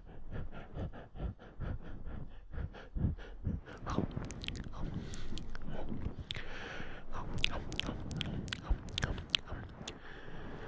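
Close-miked ASMR mouth sounds: wet nibbling, smacking and clicking right at the microphone, like ear-eating. The sharp clicks come thick and irregular, growing crisper about four seconds in, with a brief breathy rush around two-thirds of the way through.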